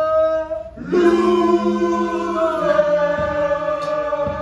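A group of voices singing long held notes in harmony. One held note ends just under a second in, then several voices come in together on a chord, moving to a new chord about halfway through.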